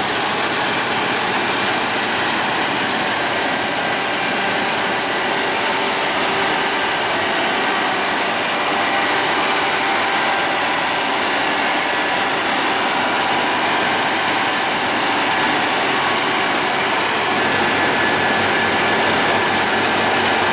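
Heavy harvest machinery running steadily: an even rushing mechanical noise with faint constant tones and no change in pace.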